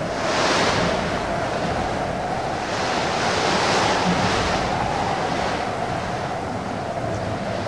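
Strong wind blowing in gusts, swelling about half a second in and again around three to four seconds in.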